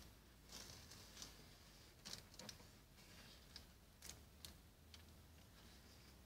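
Faint, irregular short scrapes and ticks of a plastic squeegee being worked over window tint film on a car's door glass.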